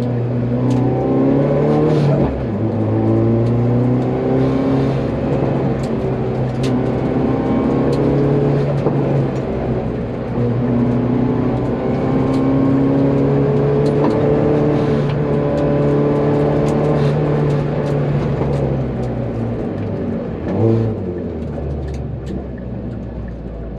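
Hyundai Veloster N 2.0-litre turbocharged four-cylinder engine, swapped into a 1991 Hyundai Excel, heard from inside the stripped cabin as it accelerates on track, its pitch climbing and dropping back several times. A brief knock comes about three seconds before the end.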